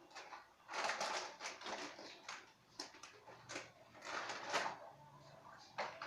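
Irregular rustles, clicks and crinkles of small objects being handled, coming in clusters with short pauses between.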